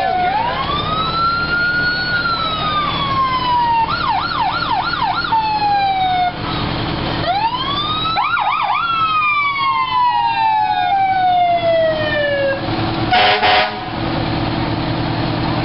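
Fire engine sirens passing: the siren winds up, warbles quickly up and down a few times, and falls away slowly, twice over, over the steady low running of the trucks' engines. A short, loud horn blast comes near the end.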